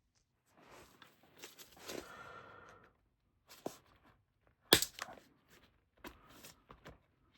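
Pliers working a metal tooth off a jacket zipper's fabric tape: a few seconds of scraping and rustling, then a sharp click a little under five seconds in as the tooth comes loose, followed by a few lighter clicks.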